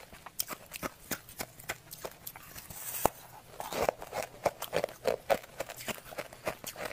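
Sharp, irregular crackling and clicking of thin sheets of frozen Tartary buckwheat ice cracking as fingers pry and snap them apart in a plastic tub. It gets denser and crunchier from about three and a half seconds in.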